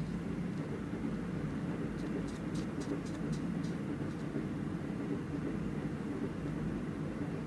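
A few short scratchy strokes of a marker on paper, about two to three and a half seconds in, over a steady low rumble.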